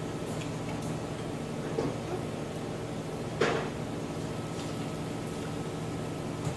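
Chopsticks knocking and scraping on a grill pan while vegetables are turned, with a small knock about two seconds in and a louder short clatter about three and a half seconds in, over a steady low hum.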